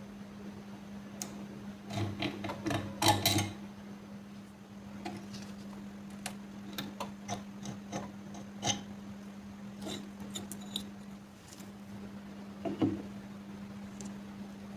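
Small metal parts clicking and clinking as they are handled and knocked together, with a quick run of louder knocks about three seconds in and scattered single clicks after, over a steady low hum.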